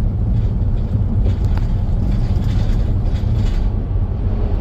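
Steady low road and drive rumble of a motorhome cruising at highway speed, heard from inside, with a few faint clicks or rattles.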